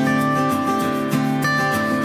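Background music played on plucked acoustic guitar, a steady run of picked notes.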